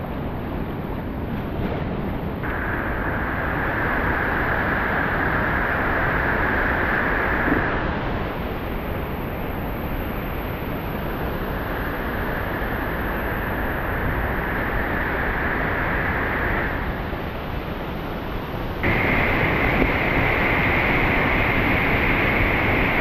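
Steady roar of whitewater rapids at the Great Falls of the Potomac. About nineteen seconds in it turns suddenly louder and brighter.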